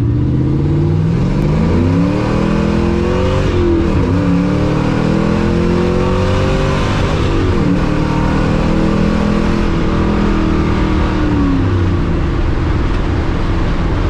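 LS V8 engine accelerating through the gears of a T56 manual gearbox, heard from inside the cabin. The revs climb, drop at shifts about four and seven and a half seconds in, climb again, then ease off near the end.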